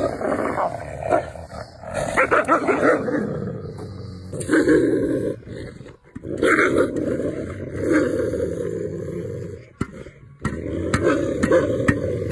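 Wolves growling and snarling over a slab of raw meat, in rough bouts of a second or two with short breaks between, and a few sharp clicks in the second half.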